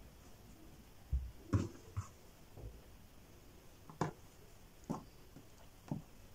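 Hands laying out and smoothing cut fabric pieces on a work table: light handling noise with a series of short taps and thumps, about half a dozen spread irregularly.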